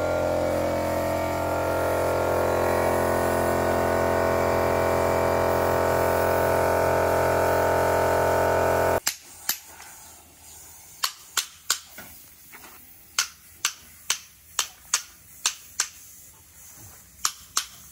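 Steady machine hum of an air compressor feeding a paint spray gun, cutting off abruptly about nine seconds in. After that it is quieter, with a string of sharp, irregular clicks.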